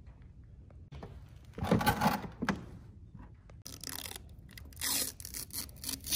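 Clear protective plastic film being peeled off a cooler's nameplate, crackling and tearing in irregular bursts, the loudest about two seconds in.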